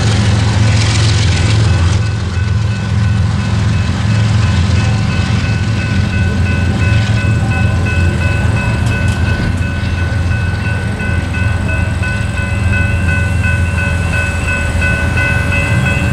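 Railroad crossing bell ringing in a quick, even pulse over the steady low rumble of a departing freight train, with a rush of wheel noise from the last cars in the first couple of seconds.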